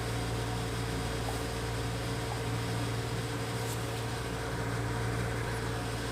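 Steady low hum of room background noise, unchanging throughout, with a faint higher steady tone above it.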